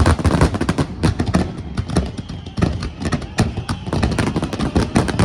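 Fireworks finale barrage: many shell bursts going off in quick succession with no pause, over a continuous low rumble.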